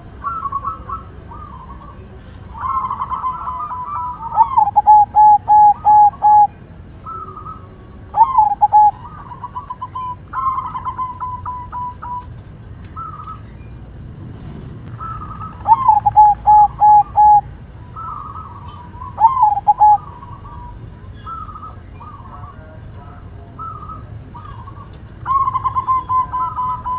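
Zebra dove (perkutut) singing its cooing song, several times over. Each phrase has a warbled opening and then a quick run of five or six short, evenly spaced coos, which are the loudest part.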